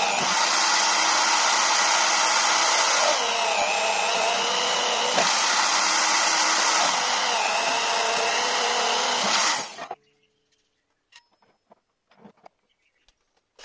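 Bench drill press motor running while drilling through a metal bar, its whine dipping in pitch and recovering a few times as the bit is fed in. About ten seconds in the motor is switched off and dies away quickly, leaving a few faint clicks and taps.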